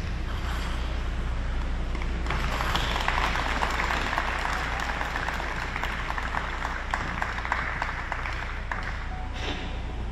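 Audience applauding, the clapping swelling about two seconds in and dying away near the end.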